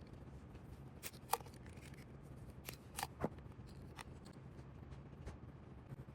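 A handful of short, sharp clicks and snips from small tools working on a Hot Wheels diecast car during a wheel swap. The loudest come just after one second and around three seconds in.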